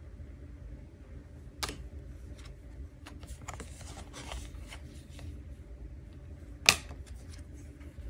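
Message cards being handled and flipped on a wooden table: soft sliding and light taps, with a sharp card click about a second and a half in and a louder, sharper snap near the end. A low steady hum runs underneath.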